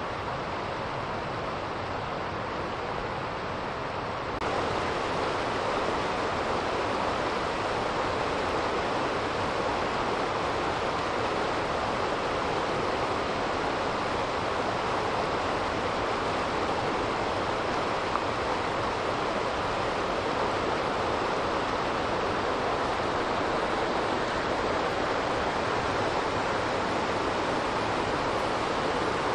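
A steady rushing noise of flowing water, louder from about four and a half seconds in.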